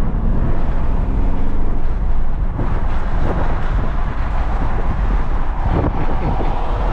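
Audi RS7 being driven: steady engine and road noise, with a few brief sharper sounds about three seconds in and again near six seconds.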